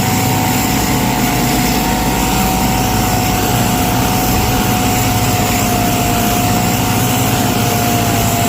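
Angle grinder fitted with a steel wire brush, running steadily against a concrete slab to scour out chased cracks, with a constant high motor whine over a rough grinding hiss.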